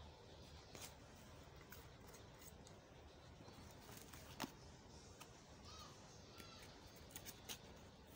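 Near silence with faint clicks and taps from a cardboard box and its contents being handled and closed. The sharpest click comes about four and a half seconds in, a few more near the end, and a short high chirp around six seconds in.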